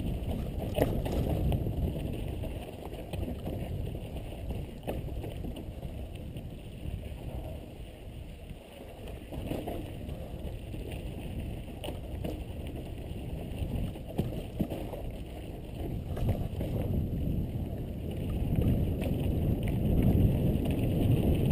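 Wind buffeting a helmet-mounted camera's microphone and mountain-bike tyres rolling over a dry, rocky dirt trail on a fast descent, with scattered knocks and rattles from the bike over rocks. The rush grows louder near the end.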